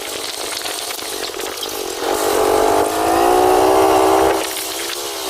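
Vehicle engine running with road noise; about two seconds in its note rises as it revs up, holds, then drops away again near the end.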